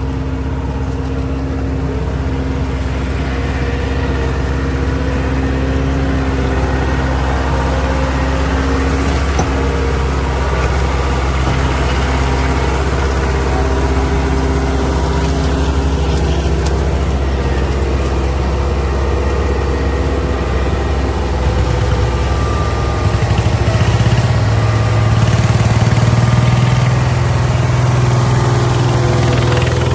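Small bulldozer's engine running steadily, growing louder for a few seconds about three-quarters of the way through.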